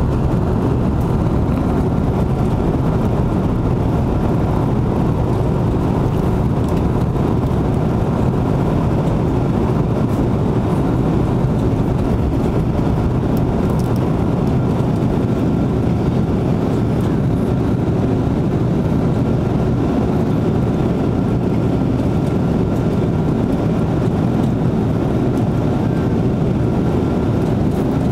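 Airbus A330-200 jet engines and airflow heard from inside the passenger cabin during the climb after take-off: a steady, loud roar with a faint steady whine over it.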